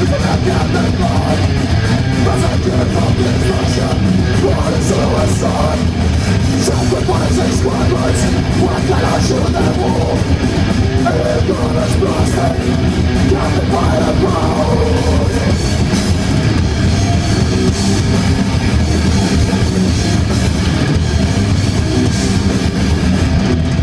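Death metal band playing live through a loud PA: heavily distorted electric guitars, bass and pounding drums, with harsh growled vocals over the top.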